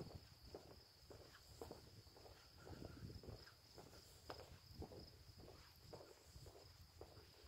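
Faint steady chirring of night insects, with soft footsteps, roughly two a second, underneath.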